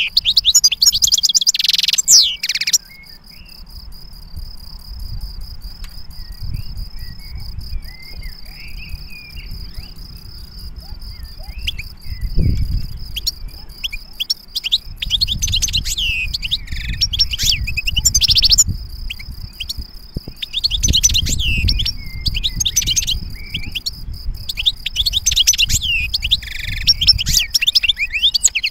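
European goldfinch singing fast, tinkling, twittering phrases. A loud burst at the start gives way to a long lull of faint chirps, and the full song returns about two-thirds of the way in. A steady, pulsing high trill runs beneath most of it.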